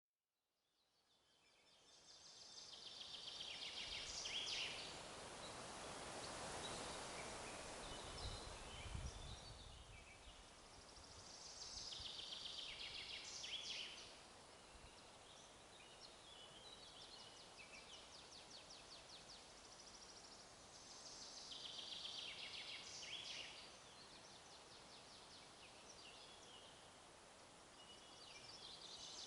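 Forest ambience: songbirds singing short high phrases about every nine or ten seconds over a faint steady hiss. A gust of wind rises and falls about a third of the way in.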